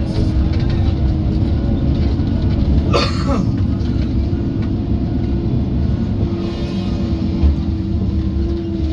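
Tigercat track feller buncher's engine and hydraulics running steadily under load, heard from inside the cab as a loud low rumble with a steady hum. About three seconds in there is a brief burst of noise.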